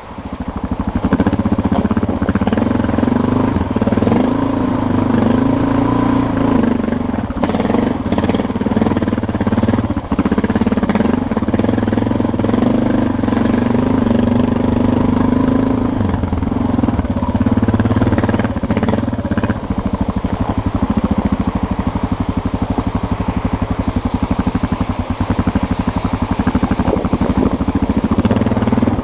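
Dual-sport motorcycle engine running close to the microphone, its pitch rising and falling as the throttle is worked, with a few sharp knocks along the way.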